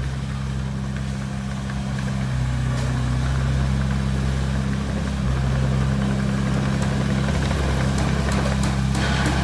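Heavy diesel engine running steadily at a low, even pitch, with slight changes in level about two and five seconds in.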